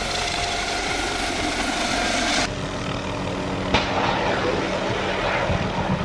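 Military helicopter flying: steady rotor and turbine noise, changing abruptly about two and a half seconds in.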